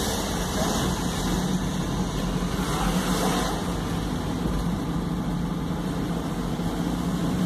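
Car engine running steadily with road and tyre noise, heard inside the cabin while driving along a street.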